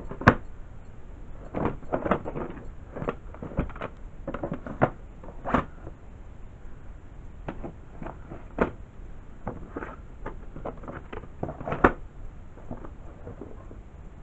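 Plastic VHS tape cases clacking and knocking against each other and the box as they are handled and slotted back into a box-set case: a string of irregular knocks and clicks, the sharpest just after the start and another near the end.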